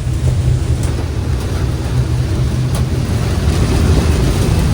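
Engines of a 43-foot Frontrunner boat running steadily underway, a deep even hum under wind buffeting the microphone.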